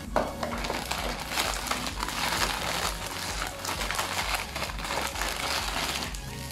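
Clear plastic bags holding model-kit runners crinkling as they are handled and turned over.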